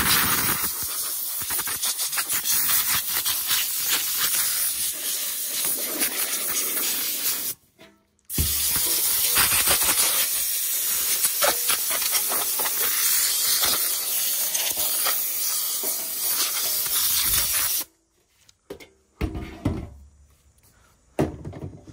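Compressed-air blow gun hissing as it blows sanding dust off a scuffed motorcycle fender. It comes in two long blasts with a brief break about eight seconds in, and stops about eighteen seconds in, leaving a few light knocks.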